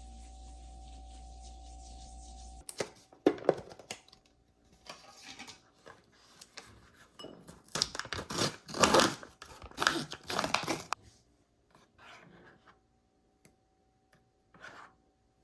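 Small handling noises at a desk: a string of clicks, rustling and scraping, loudest about a third of the way in and again around the middle, then thinning to a few taps. It starts after a steady low hum that cuts off abruptly.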